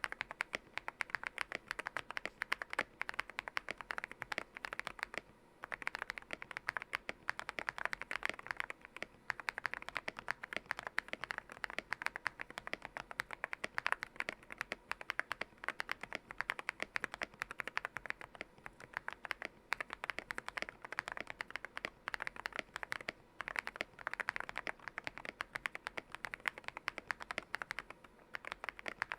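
Fast continuous typing on a Yunzii YZ98 mechanical keyboard with lubed Akko Lavender Purple Pro switches and XDA-profile keycaps, a dense run of keystrokes with short pauses about five and a half seconds in and again near twenty-three seconds.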